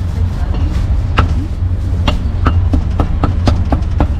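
Meat cleaver chopping roast meat on a thick wooden chopping block: sharp chops at an uneven pace, sparse in the first second, then a quick run of several. A steady low rumble runs underneath.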